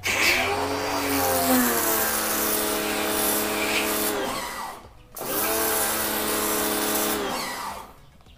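Kawasaki HPW3 electric pressure washer running and spraying, its motor humming under load over the hiss of the jet, in two runs with a brief stop between as the motor cuts out. The freshly replaced pump is delivering a good spray again on this test.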